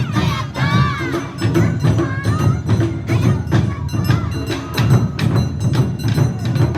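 Awa Odori festival music played live by a street band: drums and clanging hand gongs keep a quick, steady beat, with gliding higher notes above.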